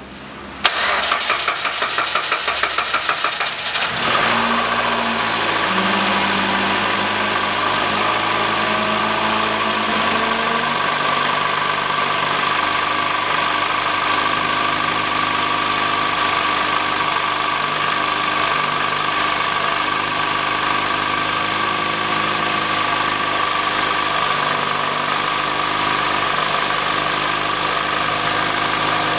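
The newly installed 1.8-litre 4B10 four-cylinder engine of a Mitsubishi ASX being cranked by the starter for about three seconds on its first start after the engine swap, then catching and running. Its idle shifts in pitch a few times before settling into a steady idle, with a steady whine over it.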